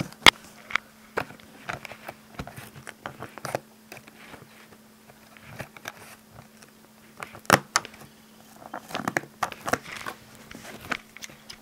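A cardboard parcel being handled and opened by hand: scattered taps, scrapes and crinkles of cardboard and packaging, with a few sharper knocks just after the start and about halfway through, over a faint steady hum.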